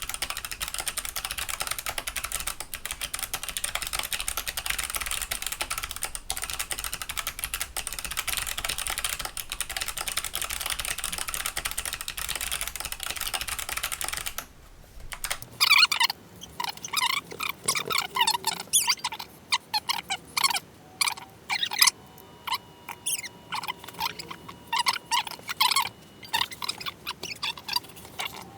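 Clicky mechanical keyboard being typed on: for about the first half, a fast, dense, continuous clatter of key clicks; then, after a sudden break, slower, separate, sharp key clicks with short pauses between them.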